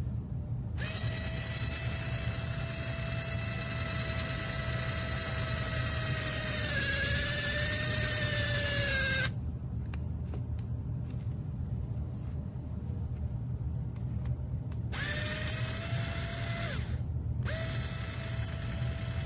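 Rechargeable mini electric drill pen motor running with a high whine: one run of about eight seconds whose pitch dips for a couple of seconds before it switches off, then two shorter runs near the end. A steady low rumble sits underneath.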